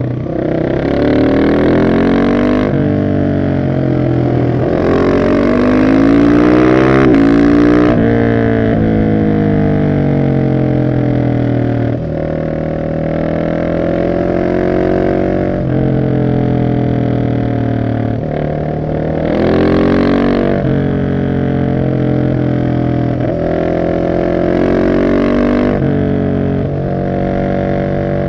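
Husqvarna 701 SM single-cylinder engine breathing through a de-catted Arrow exhaust with the dB killer in, accelerating and easing off again and again, its pitch rising and falling. It pulls hardest four times: about a second in, from about 5 to 8 seconds, about 20 seconds in, and about 25 seconds in.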